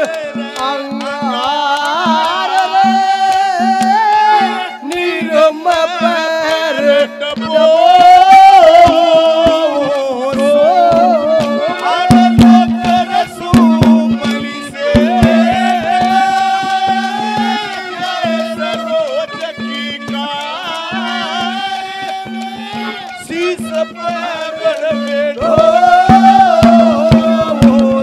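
Live Indian folk music ensemble playing: a sliding, wavering melody over a steady drone note, with hand-drum beats throughout.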